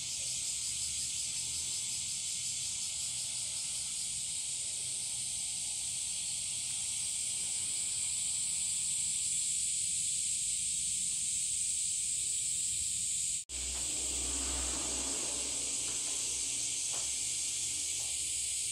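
Steady, shrill chorus of summer cicadas, a dense high hiss without a break. About thirteen seconds in, a low rumble joins it.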